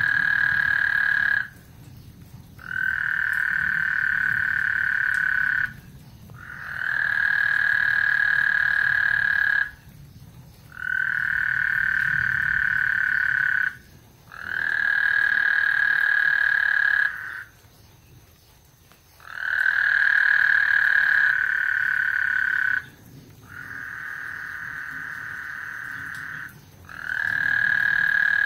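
Frogs calling: a steady, high-pitched trill about three seconds long, repeated about every four seconds with short pauses, eight times in all. The trill a little after the middle is quieter than the rest.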